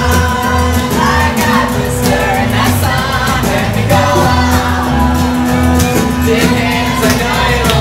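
Loud song with singing over a steady bass beat.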